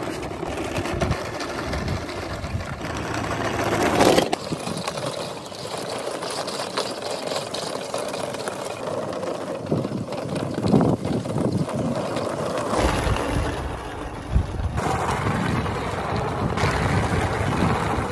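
Small electric drive motor of a radio-controlled model car whirring as it drives, with its tyres rolling over dirt and gravel. The sound changes abruptly several times where shots are cut together.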